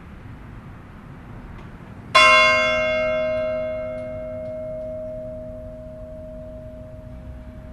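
A single stroke of a church bell about two seconds in, ringing out with a long decaying hum. The bright upper tones die away within a couple of seconds while the deep low tones linger, over a steady low background rumble.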